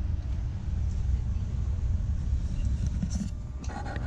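Steady low rumble of a Class 395 Javelin electric train running on High Speed 1, with a few faint clicks near the end.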